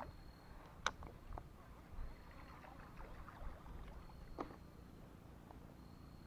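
Light knocks and clicks from a plastic kayak and its fishing gear over faint water noise, the loudest knock about a second in. A faint high note repeats about every two seconds.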